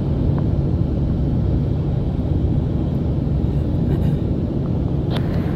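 Road noise inside a moving car: a steady low rumble of tyres and engine at highway speed.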